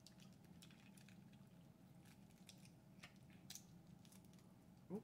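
Faint scattered clicks and crackles of a boiled shellfish shell being cracked and peeled by hand, over a low steady hum.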